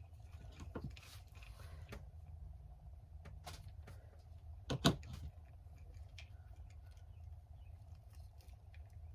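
Scattered small clicks and taps of keychain and zipper-pull hardware being handled and trimmed, with one sharper click about five seconds in, over a steady low hum.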